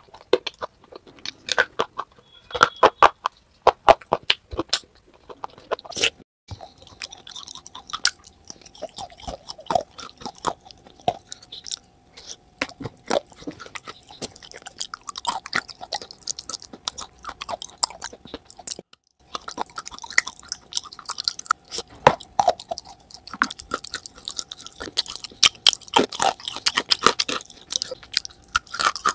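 A person crunching and chewing clay close to the microphone: many sharp, crisp bites and chews, broken by two brief gaps where the audio cuts between clips.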